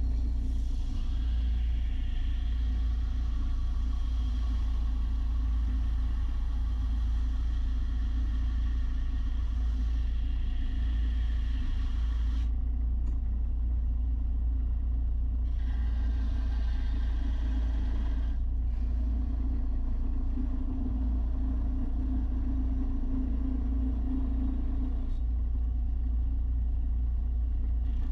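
A machine running steadily with a deep rumble and a hum, with a higher hiss above it that drops out and comes back a few times.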